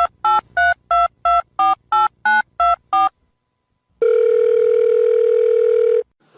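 Telephone keypad tones: ten short two-tone beeps about three a second, as a ten-digit number is dialled, then after a short pause a steady tone held for about two seconds.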